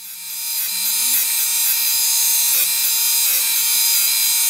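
Surface grinder's abrasive wheel grinding a steel block on a light finishing pass: a steady, hissing grind that builds over the first second or two as the wheel bites, then holds.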